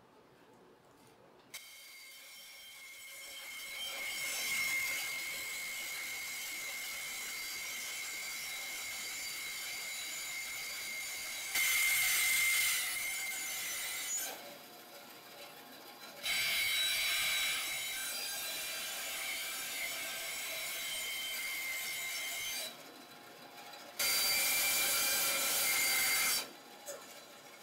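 Benchtop band saw running with a steady whine, its blade cutting through a thick beech block in three louder spells with short pauses between.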